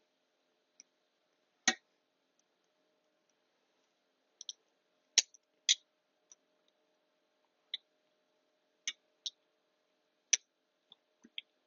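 Irregular sharp metallic clicks and taps, about fifteen, a few much louder than the rest, from hand work with a valve spring compressor and valve-spring parts on a cylinder head.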